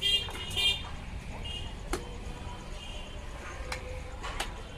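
Short high-pitched vehicle horn toots, two loud ones in the first second and fainter ones later, over a steady low hum, with a few sharp knocks.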